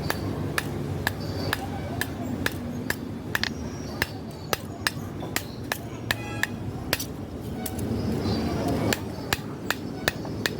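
Hand hammer blows on a steel billhook blank on an anvil, about two strikes a second in a steady forging rhythm, some with a short metallic ring.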